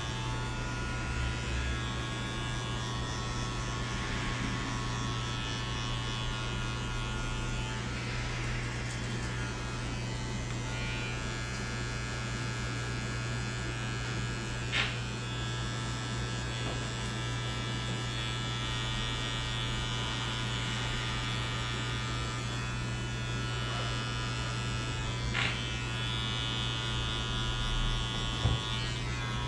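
Electric hair clippers running steadily through a fade cut, with a few sharp clicks about halfway and near the end.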